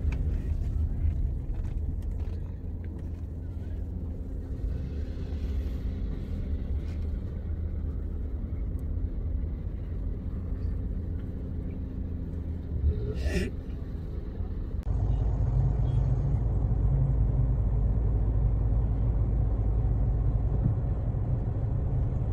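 Car cabin noise while driving: a steady low engine and road rumble. About 13 seconds in there is a brief sharp sound. Soon after, the rumble changes abruptly to a louder, deeper one.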